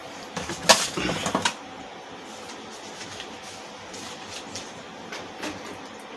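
Sharp clicks and knocks of hardware being handled as an Intel i3 processor is fitted into the motherboard's CPU socket. A cluster of clicks comes in the first second and a half, the loudest near the start, then only a few faint ticks.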